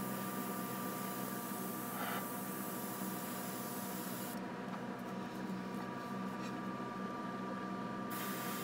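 Gravity-feed airbrush hissing as it sprays, stopping about four seconds in and starting again near the end. A steady hum runs underneath.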